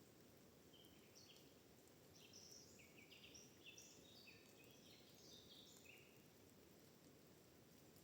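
Faint songbird song: a quick series of short, clear whistled notes that jump up and down in pitch, from about a second in until about six seconds in, over a soft steady background hiss.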